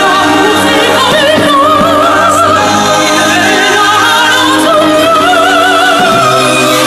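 Operatic music: a singing voice with a wide vibrato over steady sustained orchestral or choral chords.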